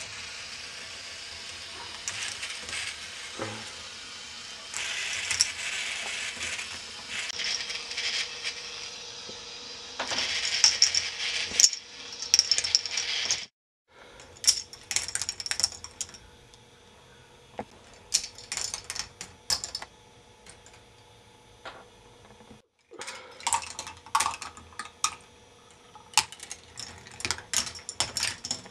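K'nex ball machine running: red plastic balls roll along plastic track and knock and clatter through the K'nex elements, making many sharp clicks and rattles. A faint steady hum from the machine's motorised lifts runs under them.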